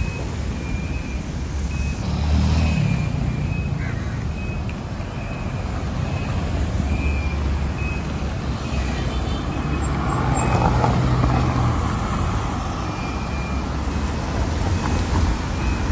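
Slow city road traffic: car and truck engines running in a steady low rumble, swelling louder twice as engines pull away, about two seconds in and again around ten seconds. A short high beep recurs on and off over it.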